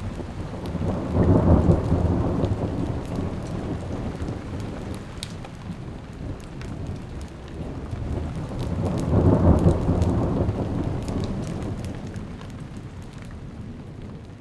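Rain falling, with two long rolls of thunder: the first swells about a second in, the second around nine seconds in, each rumbling and slowly dying away.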